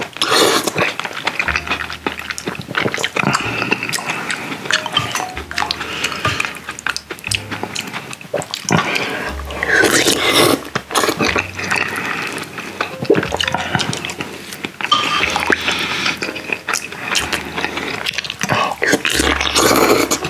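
Close-up slurping and chewing: spoonfuls of soft tofu stew and noodles sucked into the mouth, with wet mouth clicks and smacking.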